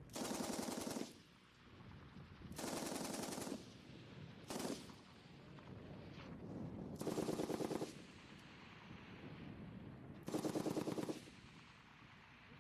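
M60 7.62mm machine gun firing five short bursts on full automatic, each about a second long, with a very brief burst in the middle, separated by pauses of a second or two.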